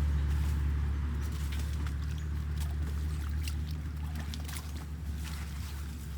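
Floodwater rushing down a drain, with a steady low rumble and scattered splashes and drips.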